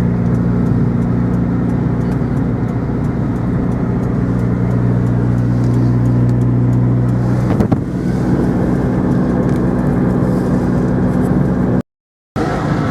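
Car engine running with road noise, heard from inside a moving car; a brief knock comes about two-thirds of the way through, after which the engine note shifts. The sound cuts out entirely for about half a second near the end.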